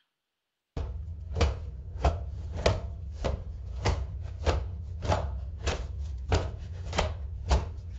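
AudioLDM-generated audio for the prompt 'chopping tomatoes on a wooden table': a knife chopping on a wooden board in a regular rhythm, about one chop every 0.6 s, over a steady low hum. The chopping starts under a second in.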